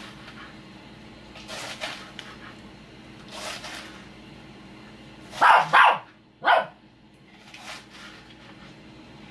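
A dog barking: faint barks every couple of seconds, then three loud barks close together about five and a half seconds in.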